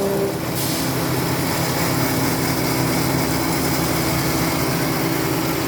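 Semi-manual tissue-paper cutting machine running with a steady motor hum; a hiss comes in about half a second in and holds.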